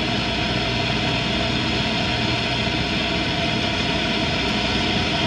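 Shortwave static from a vintage Norelco Bi-Ampli tube radio tuned between stations: a steady hiss with several faint steady whistle tones from weak carriers.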